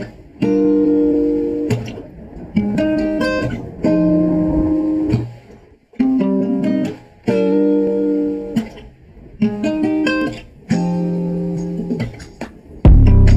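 Guitar sample playing back with the noise-reduction plugin applied: plucked chords in short phrases with brief gaps. Near the end a loud, deep bass comes in.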